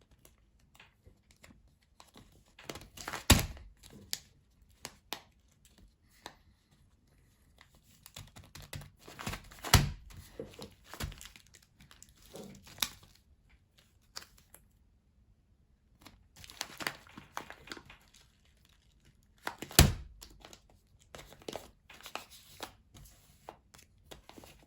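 Camo Gorilla duct tape being pulled, stuck down and handled around a rice-filled bag, with the crinkle of the tape and rice bag and a few sharp tears and thunks, the loudest about three, ten and twenty seconds in.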